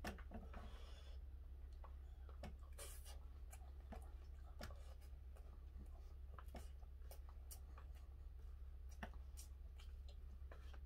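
Faint, scattered clicks and taps of wooden chopsticks against a plastic lunch box while someone eats rice, over a steady low hum.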